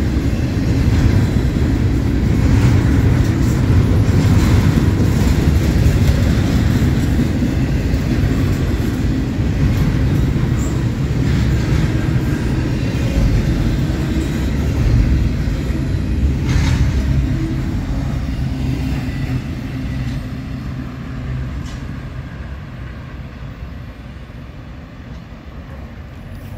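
Double-stack intermodal well cars of a freight train rolling past, with a steady rumble of wheels on rail and an odd clack. The sound fades away over the last several seconds as the end of the train passes and moves off.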